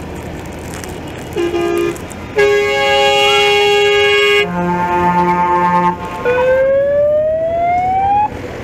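Fire engines sounding off: a couple of short horn toots, a long steady horn blast, three shorter pulsed blasts at a lower pitch, then a siren rising in pitch for about two seconds and cutting off suddenly.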